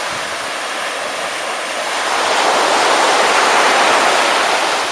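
Steady rush of water where a river current runs into the sea surf, swelling louder about halfway through.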